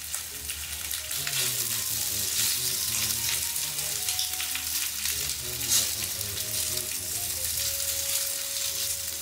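Chicken pieces sizzling as they fry in oil in a frying pan, turned with metal tongs, with a few sharp clicks of the tongs against the pan, the loudest about halfway through.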